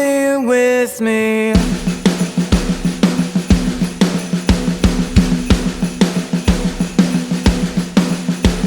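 Instrumental passage of a song: a short pitched melodic phrase, then from about a second and a half in a steady drum-kit beat over a held low note.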